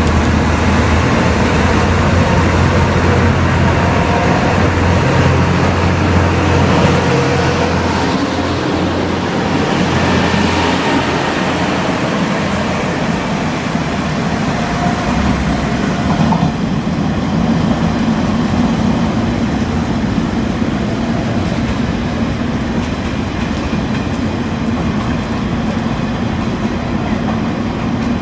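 JR Kyushu KiHa 125 diesel railcar running, its engine giving a steady low rumble along with rail and wheel noise. The low rumble is strongest for about the first ten seconds, then eases.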